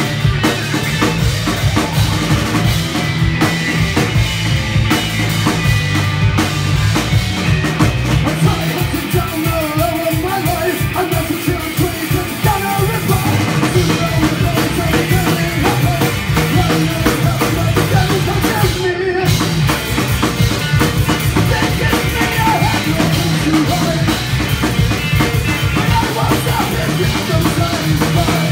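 A punk rock band playing live: electric guitar, electric bass and a drum kit pounding out a fast, steady beat.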